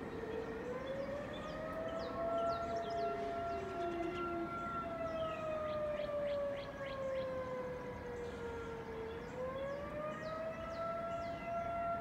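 Outdoor civil-defense warning siren sounding a slow wail during a test. Its pitch rises and holds, falls slowly through the middle, then climbs again near the end. A second, lower siren tone falls away in the first few seconds.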